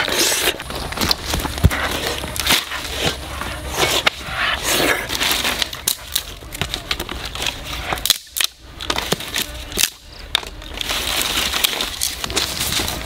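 Crackling and rustling of dry sticks and plant stems being handled, with many small snaps and clicks and a brief lull partway through.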